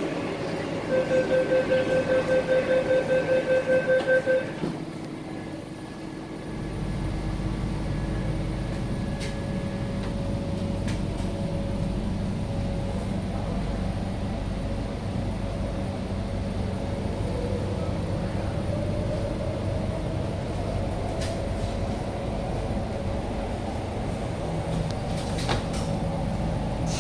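MTR C-Train door-closing warning beeps, a rapid series of about four beeps a second for some three seconds. The doors then shut and the train pulls away: a low rumble builds, with a motor whine slowly rising in pitch as it gathers speed.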